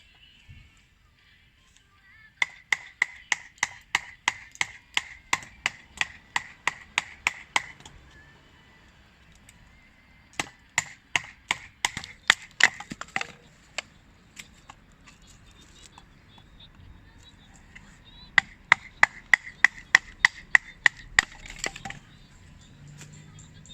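Rapid, evenly paced striking, about three blows a second, each hit with a short metallic ring, in three runs with pauses between.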